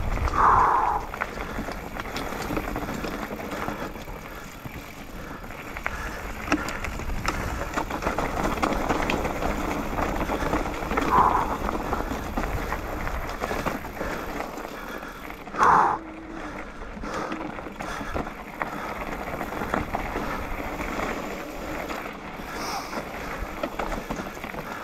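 Mountain bike rolling fast down a rocky dirt singletrack: steady rough noise of tyres on dirt and loose stones with the bike rattling, and three short louder sounds, about a second in, around eleven seconds and around sixteen seconds.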